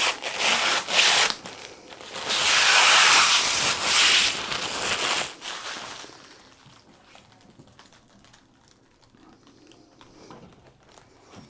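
Packaging being handled and pulled apart, with rustling, tearing and scraping. There are short bursts in the first second and a loud stretch from about two to five seconds in, then only faint handling noises.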